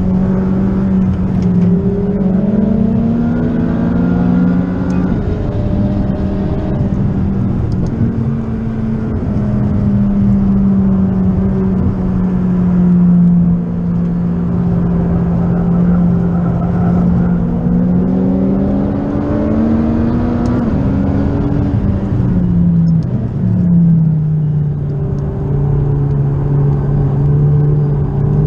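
Stage-1 tuned (650 hp) McLaren 540C's twin-turbo V8, heard from inside the cabin under hard track driving. The engine note climbs in pitch, drops back, and climbs again several times as the car accelerates and lifts.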